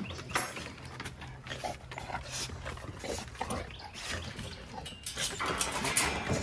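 Dogs eating fast from handed-out snacks, with irregular wet chewing and smacking clicks, over a low steady hum.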